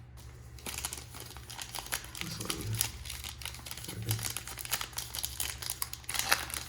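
Crinkling of a trading-card pack's foil wrapper as it is handled and opened: a dense run of small crackles starting about half a second in.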